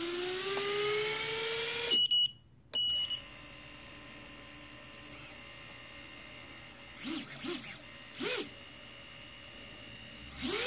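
Brushless quadcopter motor with no propeller, driven by its ESC: it whines as it spins up, the pitch rising steadily for about two seconds before cutting off, followed by two short high beeps. After a quieter stretch it gives brief blips of revving, two small ones and then a stronger one, and it revs up and down again near the end. Unloaded, the motor spins up smoothly, without the sputter and ESC resets it shows with a prop attached.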